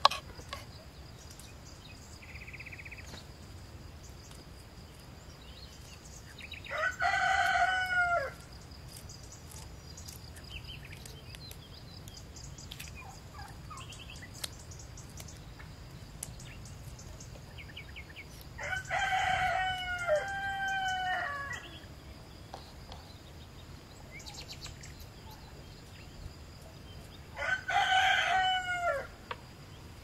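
A rooster crowing three times, about ten seconds apart; the second crow is longer than the other two.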